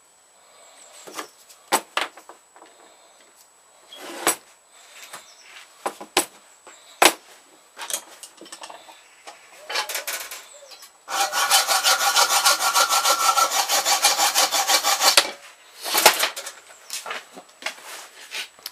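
Hacksaw cutting through a steel nail clamped in a bench vise. Scattered taps and short scrapes come first, then about four seconds of fast, steady sawing with a metallic ring, which stops abruptly.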